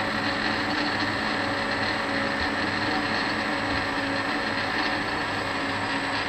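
Warco 280V metal lathe running at a steady speed, a constant hum of motor and drive with a few held tones, while it turns a thin shaft between chuck and tailstock centre in light finishing passes of 0.04 mm.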